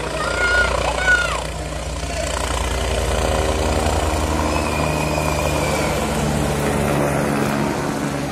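Helicopter flying low overhead: the rotor's rapid thudding and engine drone grow louder after the first couple of seconds and then hold steady. A couple of brief high-pitched calls come near the start.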